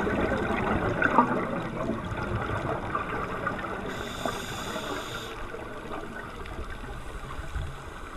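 Underwater ambience as heard on a submerged camera: muffled water noise with crackling and bubbling, slowly fading, and a brief higher hiss about four seconds in that lasts a second or so.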